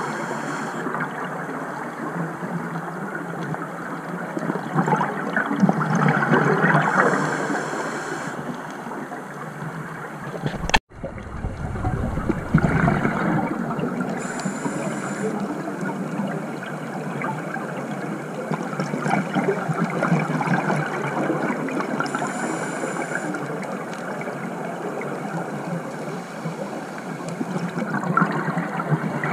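Underwater sound heard through an action camera's housing: a scuba diver's breathing through the regulator, with bursts of exhaled bubbles gurgling every several seconds. The sound drops out abruptly for an instant about eleven seconds in.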